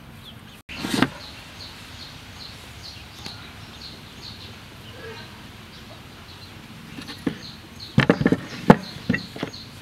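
A bird chirps over and over in an outdoor background, while dough is handled on a wooden chopping board: a brief rustle and knock about a second in and a run of sharper knocks and brush taps near the end.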